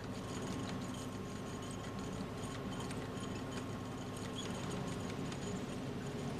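Steady low hum and hiss of workshop ambience, with scattered faint light clicks and taps.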